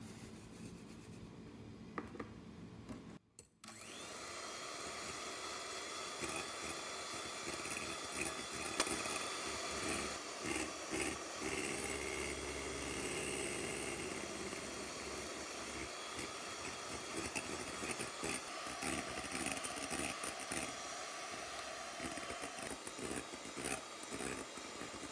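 Electric hand mixer with twin beaters whipping egg whites and sugar in a glass bowl into meringue: a steady motor whine that starts about four seconds in and keeps running.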